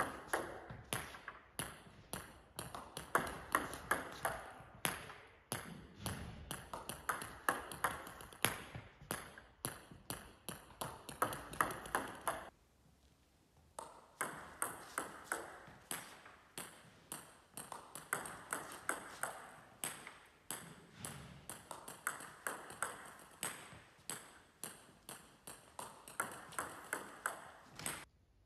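Table tennis balls clicking repeatedly, several times a second: bat strikes and bounces on the table during serve practice. The clicks stop for about a second and a half around the middle.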